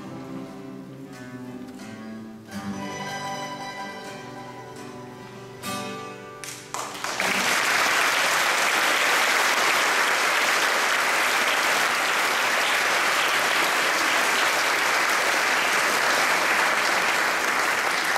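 An acoustic string band of guitars and a mandolin plays the closing bars of a gospel song. About seven seconds in, the audience breaks into steady applause, louder than the music.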